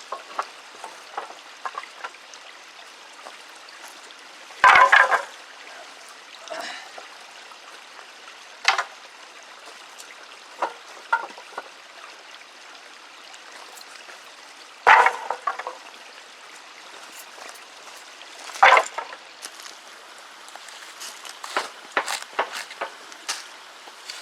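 Bark being stripped off dead wooden poles: four loud, short crackling tears about 5, 9, 15 and 19 seconds in, with small clicks and snaps near the end, over a steady low hiss.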